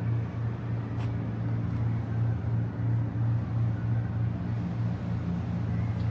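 Steady low mechanical hum that throbs evenly about twice a second, like an engine or large machine running at a constant speed.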